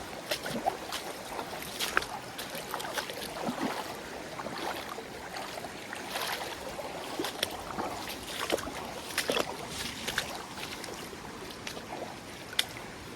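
Running creek water splashing and sloshing close by, with scattered short splashes and knocks throughout.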